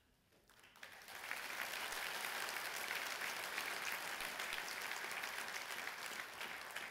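Large audience applauding, swelling over the first second and then holding steady.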